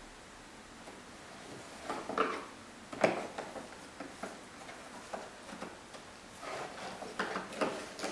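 Cardboard jigsaw puzzle pieces being handled and pressed into a tray puzzle on a table, giving scattered light knocks and clicks, the sharpest about three seconds in.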